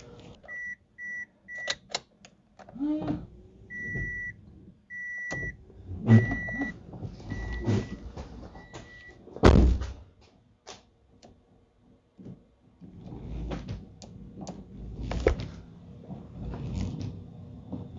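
A run of about eight short electronic beeps at one steady pitch, irregularly spaced, over the first nine seconds. Clicks and handling knocks come in between, and a single loud knock follows, with scattered knocks and rustling after it.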